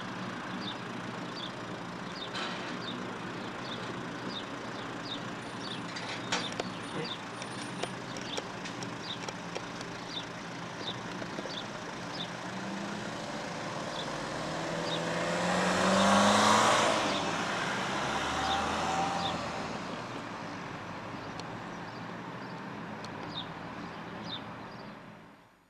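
A car drives past close by. Its engine rises and its engine and tyre noise is loudest about two-thirds of the way through, then fades. Short high chirps repeat throughout, and there are a couple of sharp clicks early on.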